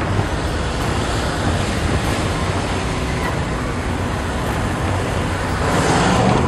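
Steady rumble and rush of a moving car, road and wind noise, growing louder briefly near the end.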